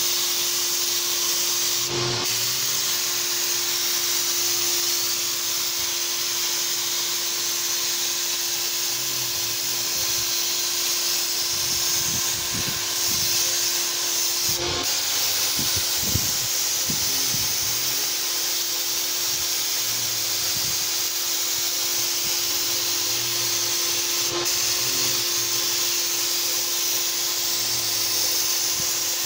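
Graco HVLP turbine paint sprayer spraying navy paint: a steady rushing hiss of air and atomised paint over a steady low hum from the turbine, with brief breaks in the hiss about three times.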